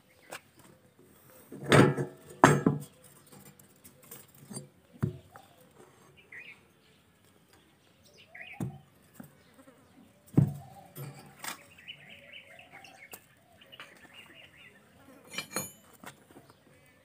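Scattered knocks and clunks as an old iron axe head and a rusty steel pipe are moved and set down on sandy ground, the loudest pair about two seconds in. Birds chirp faintly between the knocks.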